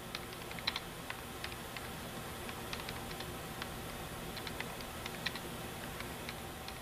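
Typing on a computer keyboard: irregular sharp key clicks, a few a second, over a steady low hum.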